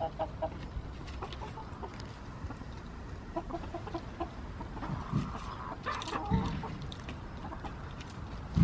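A backyard flock of young hens and roosters, about five months old, clucking in scattered short calls. The calls come a little thicker and louder about five to six seconds in.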